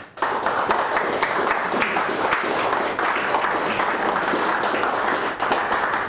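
Audience applauding: many hands clapping together in a steady, dense patter that breaks out just after the start.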